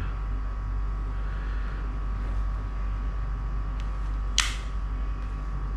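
Handling noise from a small baitcasting fishing reel over a steady background hum: a faint tick about four seconds in, then a short, sharper scraping click just after.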